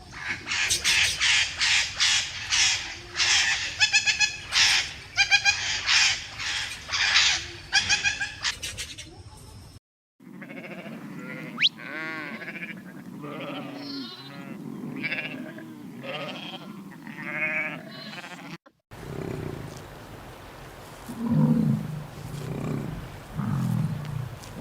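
Animal calls in three separate clips with abrupt cuts between them. First comes a fast run of loud, harsh, high calls. Then wavering, bleat-like calls, and finally lower, deeper calls.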